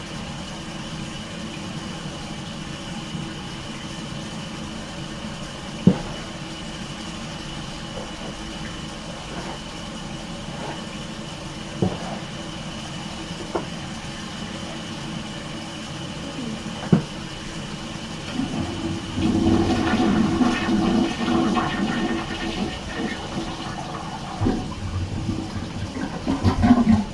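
Water running steadily, with three sharp clicks. About two-thirds of the way in comes a louder, churning rush of water lasting about five seconds.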